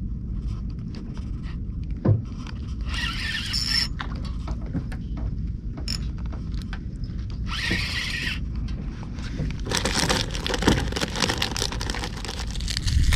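A spinning reel and rod being worked during lure fishing. There are brief whirring scrapes about three and eight seconds in, then a longer run of rapid clicking and scraping near the end, over a steady low rumble.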